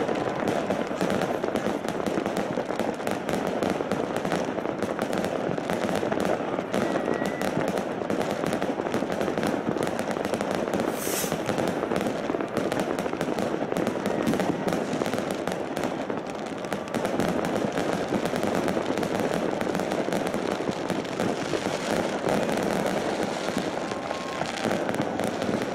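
Fireworks display: a continuous barrage of aerial shell bangs and crackling stars, with a brief high hiss about eleven seconds in.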